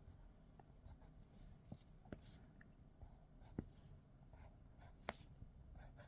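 Faint scratching of a colouring tool on paper as grass is shaded in, with a few light ticks.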